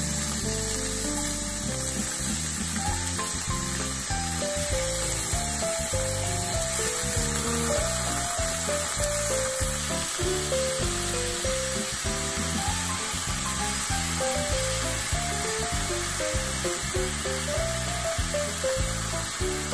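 Thin slices of sirloin sizzling in hot oil in a ceramic nonstick pan, a steady frying hiss, under background music with a melody.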